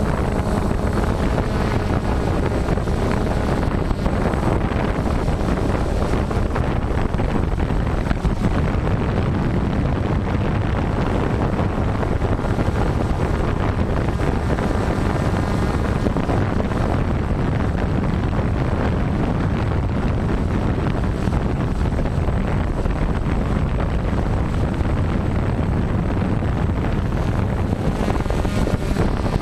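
Camera drone's motors and propellers running steadily in flight, with wind buffeting the microphone.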